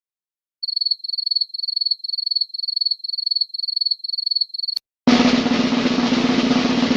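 Cricket chirping: a high, steady trill repeated about twice a second for about four seconds. About five seconds in it gives way to a continuous snare drum roll.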